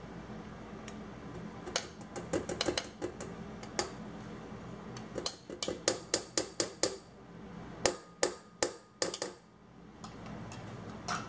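A plastic measuring scoop tapped and knocked against the steel bowl and beater of a KitchenAid stand mixer to shake off sour cream, making sharp clicks. The clicks are scattered at first, then come in a quick run of six or seven about halfway through and another few near the end.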